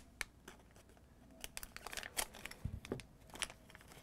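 Thin plastic Lego Minifigures blind-bag packet crinkling and tearing as it is cut with scissors and pulled open by hand. A few faint clicks come first, then a run of quick crinkles from about a second and a half in.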